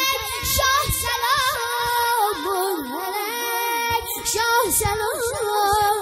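A boy singing a Shia mourning chant in the fast shur style into a microphone, holding long wavering, ornamented notes. A few sharp slaps from the bare-chested mourners beating their chests come through about a second in and again four to five seconds in.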